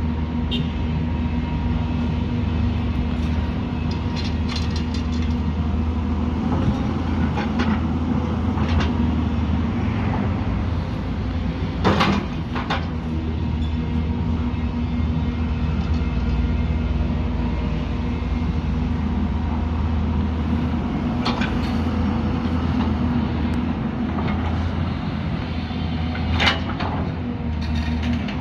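The diesel engine of a heavy earthmoving machine running steadily under work, with occasional sharp knocks from the machine, the strongest about twelve seconds in and again near the end.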